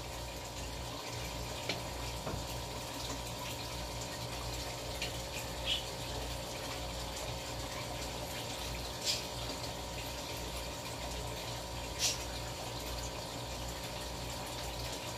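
Steady low mechanical hum with an even hiss and a faint steady tone, broken by a few brief faint ticks.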